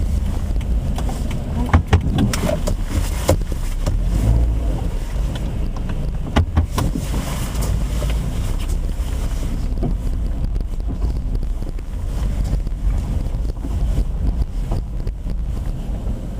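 Steady low rumble of a car driving, engine and tyre noise heard from inside the cabin, with wind buffeting the microphone and a few sharp knocks in the first half.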